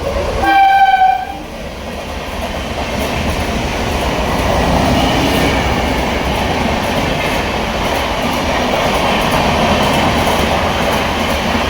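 Short horn blast of about a second from an express train hauled by a WAP7 electric locomotive, then the steady rush and clatter of the train passing at speed, growing louder over a few seconds and holding.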